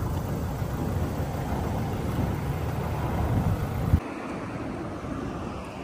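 Car running, a loud low rumble of engine and road noise that swells slightly, then cuts off abruptly about four seconds in to a quieter steady background noise.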